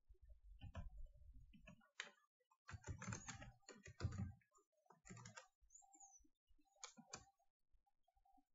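Faint typing on a computer keyboard in several short quick bursts.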